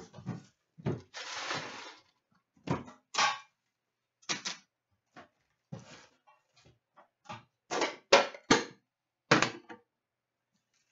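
Shrink-wrap plastic crinkling as a sealed box of hockey cards is unwrapped, then a series of sharp taps and thunks as the cardboard box and card packs are handled and set down on a glass-topped counter.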